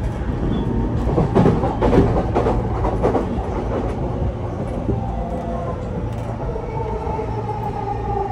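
Running sound inside a JR East E233 series 0 electric train's motor car: wheels clacking over rail joints in the first three seconds over a steady low rumble. From about five seconds in, the traction motors' whine settles into steady tones.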